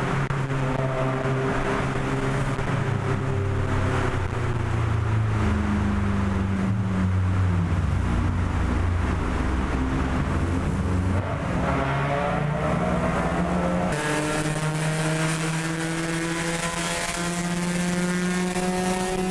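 Car engine running with a steady note that drops away a few seconds in, then climbs again as it revs up. About fourteen seconds in the sound changes abruptly to another steady engine drone.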